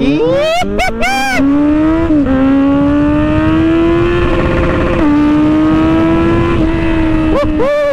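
Kawasaki Z900 inline-four engine under way. It revs up quickly in the first second or so, then runs at a steady pitch with small dips, and rises and falls briefly again near the end, over rushing wind noise.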